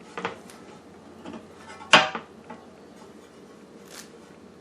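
Metal meat grinder parts clinking and knocking together as the grinder head is assembled: a few light clicks, one loud ringing clank about two seconds in, and a sharp tick near the end.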